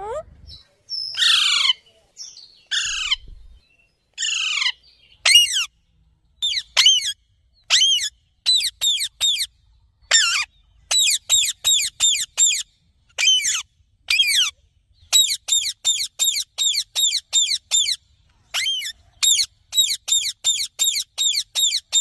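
Parrot calling: a few longer, harsh screeches in the first seconds, then a rapid run of short, sharp calls at about three or four a second.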